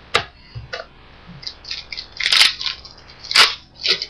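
1995 Topps Finest baseball cards and their pack wrapper being handled: a string of short crinkling and clicking rustles, the longest about halfway through.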